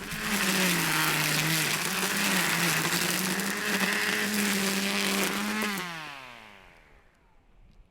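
Kobalt 40V cordless string trimmer spun up with freshly loaded line: the electric motor and whirling line run with a steady whir and hiss for about five and a half seconds, then the trigger is released and it winds down with a falling whine.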